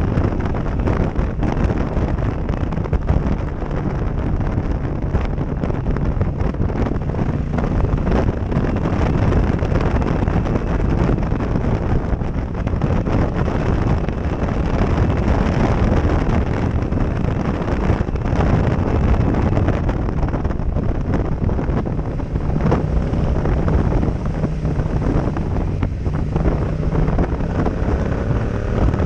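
Heavy wind buffeting on a helmet-mounted action-camera microphone while riding a motorcycle, with the bike's Yamaha 689 cc parallel-twin engine running steadily underneath.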